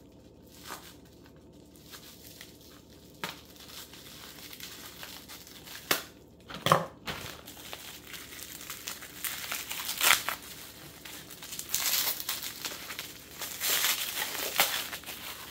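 Plastic bubble wrap crinkling as it is cut with scissors and pulled off a beer can. A few sharp snips and clicks come in the first half, and the crinkling gets denser from about halfway on.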